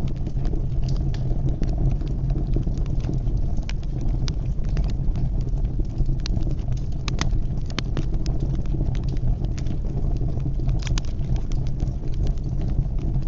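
Fire crackling in a fireplace: irregular sharp pops and crackles over a steady low rumble.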